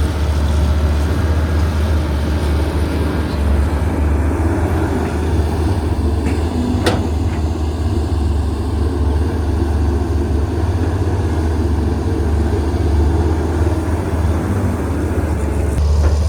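A CAT 320CL excavator's diesel engine running under working load as a steady low drone, with a single sharp click about seven seconds in.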